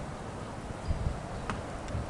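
Wind buffeting the microphone in uneven low gusts, with one brief click about a second and a half in.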